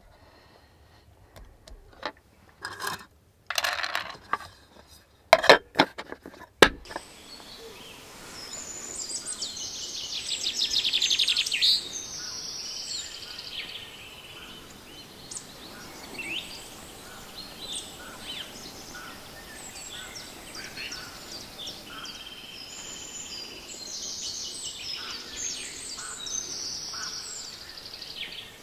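Several sharp knocks and rustles as vegetables are pressed into a metal baking pan, then forest birdsong: a loud trill lasting about three seconds, followed by many scattered chirps and calls of several birds.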